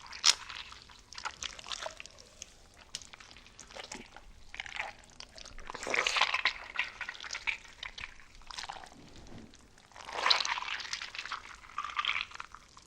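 Wet, liquid blood-and-gore sound effect: irregular squelching and dripping, swelling louder about six seconds in and again about ten seconds in.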